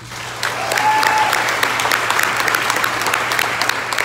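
Crowd applauding, many hands clapping at once, swelling about half a second in and holding steady.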